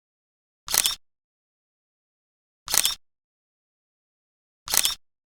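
Camera shutter click sound effect, repeated three times about two seconds apart, with dead silence between the clicks.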